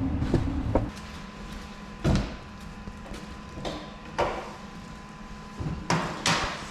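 A low rumble cuts off about a second in, followed by a handful of separate knocks and thumps, like doors or parts being handled.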